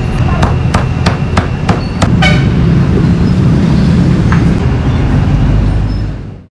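A cleaver chopping meat on a wooden block, sharp knocks about three a second for the first two seconds, over a steady background of street traffic and voices that fades out near the end.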